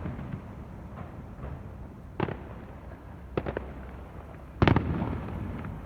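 Fireworks exploding overhead: a sharp bang about two seconds in, a couple of quick cracks a little after three seconds, and the loudest boom near five seconds in, its rumble dying away over about a second.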